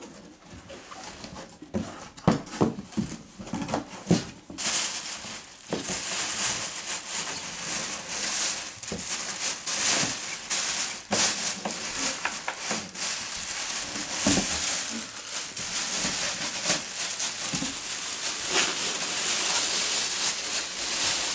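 Packaging being handled and unwrapped: a few knocks and thuds in the first seconds, then continuous crinkling and rustling from about five seconds in.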